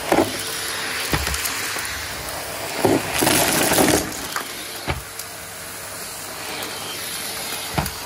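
Numatic Hetty canister vacuum cleaner running with a steady hum and whine as its floor tool is pushed over carpet, with a few short knocks as the head bumps along. About three seconds in, a louder rattling hiss for about a second as debris is sucked up the wand.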